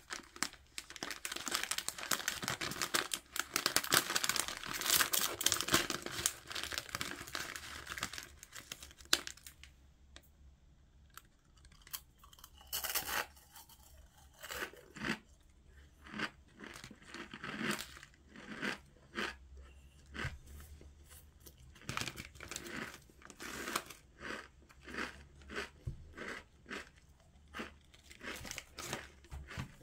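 Foil snack packet of GEMEZ Enaak crispy noodle snack crinkling and tearing open steadily for the first nine seconds or so. After that comes a run of separate short crackles and crunches, the packet being handled and the dry snack crunched.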